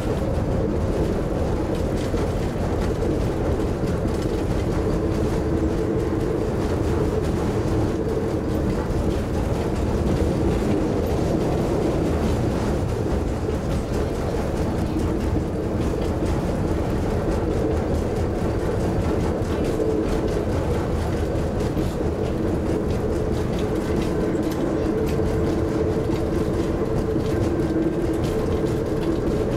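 Cab interior of a Nanbu Jūkan Railway railbus running along the line: its diesel engine drones steadily with the wheels' running noise underneath, at an even pace throughout.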